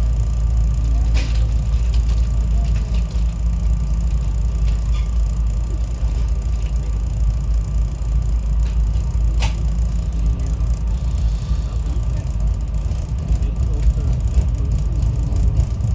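Steady low rumble of a SEPTA Regional Rail train running between stations, heard from inside the passenger car. Two short sharp clicks come about a second in and about halfway through.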